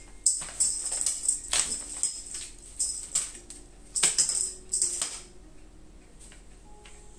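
Irregular bursts of jingling and rustling as a cat teaser toy is flicked over crumpled kraft paper and a cat bats at it. The bursts come in quick clusters in the first five seconds, then fade.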